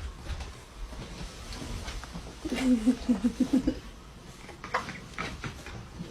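A cat giving a short run of quick, soft vocal pulses about two and a half seconds in, with a few faint taps later.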